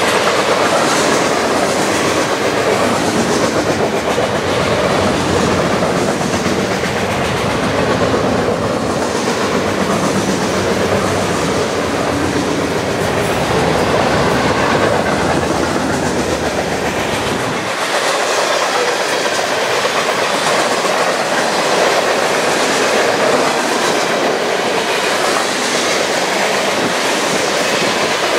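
Freight train cars rolling past on steel wheels in a steady, loud rail clatter: centerbeam lumber cars giving way to boxcars. The deepest rumble drops away about two-thirds of the way through.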